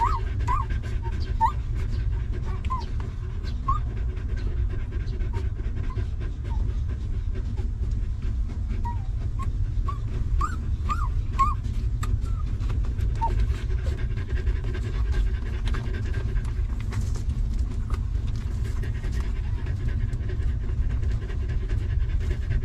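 Mother dog panting steadily. Newborn puppies give short, thin squeaks now and then, a cluster near the start and another about halfway through.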